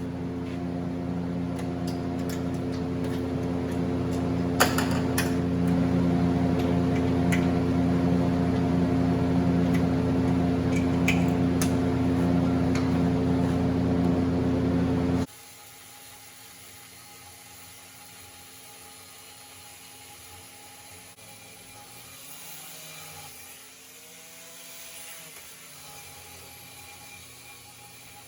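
Electric power tool running steadily as it cuts a slot into 3/8-inch steel flat bar, with a few sharp clicks along the way; it stops abruptly about 15 seconds in, leaving only faint background noise.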